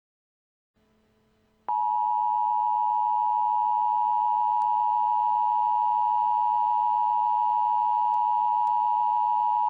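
Emergency Alert System two-tone attention signal: two steady tones sounded together (853 and 960 Hz). It starts abruptly about two seconds in, after a faint hum, holds an even level for about eight seconds and cuts off sharply, marking the start of an EAS alert message.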